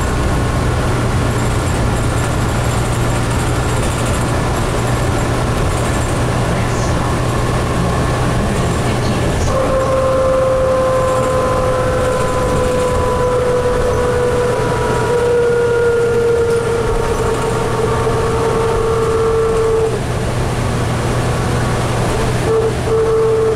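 Cabin sound of a 2004 New Flyer DE60LF diesel-electric hybrid articulated bus under way: a steady rumble of its Caterpillar C9 diesel and road noise. About ten seconds in, a whine from the Allison EP50 hybrid drive comes in and slowly drops in pitch. It breaks off briefly near the end, then returns.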